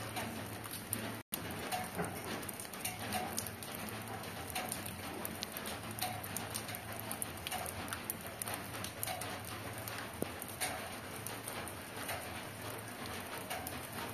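Steady rain falling on leaves and the ground, many separate drops ticking through an even hiss; the sound cuts out for an instant about a second in.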